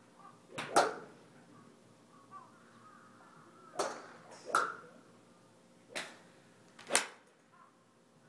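Golf clubs striking balls on a driving range: five sharp cracks, one about a second in, two close together around four seconds in, and two more near the end. The loudest is the last, the golfer's own full swing at impact.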